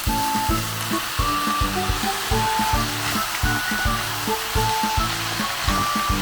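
Food sizzling in a hot pan, a steady hiss, under background music with a steady beat.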